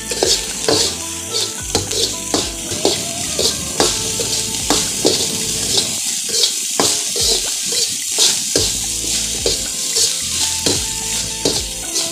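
Metal ladle scraping and stirring rice in a hot steel wok, about two strokes a second, over a steady sizzle of frying.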